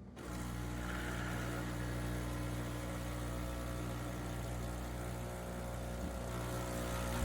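Breville Barista Touch espresso machine running with a steady, low buzzing hum that comes on just after the start and holds evenly.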